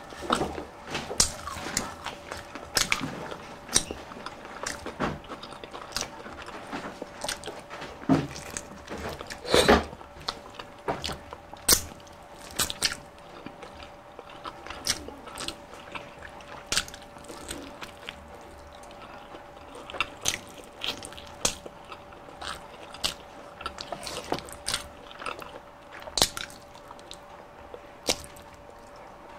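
Close-up eating sounds: crispy Jollibee spicy Chickenjoy fried chicken being bitten and chewed, with wet mouth clicks and smacks coming irregularly, several a second at times. A faint steady hum lies underneath.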